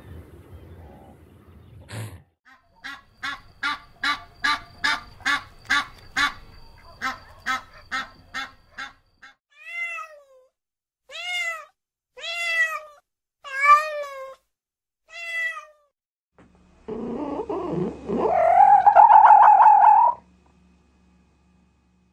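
A rapid run of short, evenly repeated animal calls, about two or three a second. Then a tabby domestic cat meows five times, each meow falling in pitch. Then comes a louder, drawn-out call that rises and holds before cutting off near the end.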